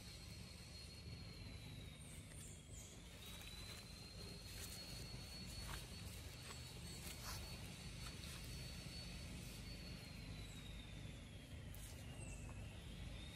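Faint outdoor ambience: a low steady rumble under a thin, high steady whine that dips in pitch and comes back up twice. Scattered light crackles of dry leaves come from two young macaques wrestling on the leaf litter.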